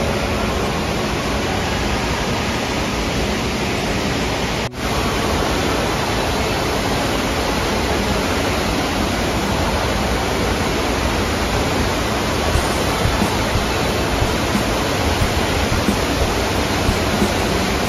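Steady roar of rushing water from a sheet-wave surf simulator, water pumped fast up its padded slope. It breaks off for an instant about five seconds in, then carries on unchanged.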